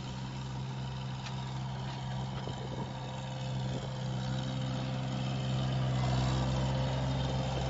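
WOLF Mini750 mini loader's engine running steadily under load while powering a front-mounted hydraulic flail mower cutting grass. The sound grows louder about halfway through as the machine comes close.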